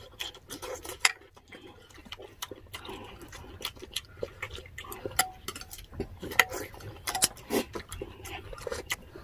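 Close-up eating sounds: chewing and mouth noises, mixed with scattered short clicks and clinks of metal spoons against glass bowls and dishes.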